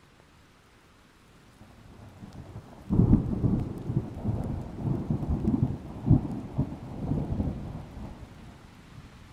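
Plastic toy vehicles being handled and moved about on a tabletop: an uneven low rumbling with many knocks. It builds about three seconds in and dies down near the end.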